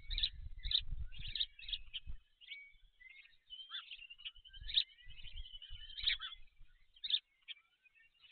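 Small songbirds chirping and trilling, several short calls overlapping. A low rumble runs under them in the first two seconds and again midway.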